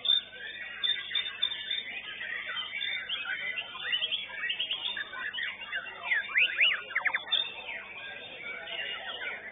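White-rumped shamas singing in competition: loud, varied whistles and chattering phrases overlapping from several birds, with a run of quick rising-and-falling whistled sweeps about two-thirds of the way through.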